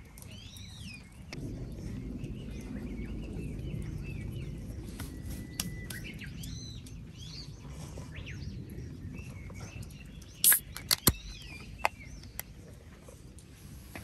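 Wild birds singing, the same chirping phrase coming back several times, over a low rumble that sets in about a second in and fades after about nine seconds. A few sharp clicks or knocks near the end are the loudest sounds.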